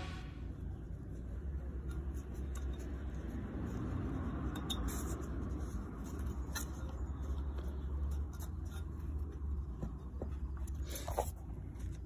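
Faint handling sounds of fingers scraping and picking at the rubber burner seal on a Vaillant ecotec boiler's burner door, with a few light clicks, over a low steady rumble.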